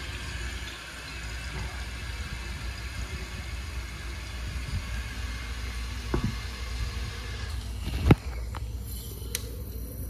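Toilet cistern refilling: a steady hiss of water through the fill valve that thins out and drops away about seven and a half seconds in. Two sharp knocks near the end, the second louder.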